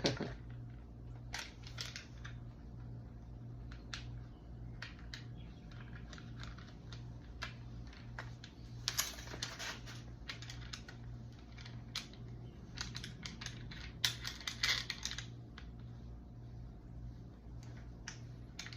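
Pressure washer spray wand being screwed into its trigger gun: scattered clicks and rattles of the parts handled and turned, busiest about nine and fourteen seconds in. A steady low hum runs underneath.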